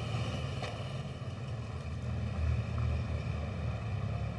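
A low, steady rumbling drone with a faint hiss above it.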